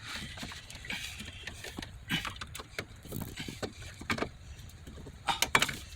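Scattered small metallic clicks and knocks of hand work as a spring retaining clip is worked onto a steel parking brake cable at its bracket, with a few sharper knocks near the end.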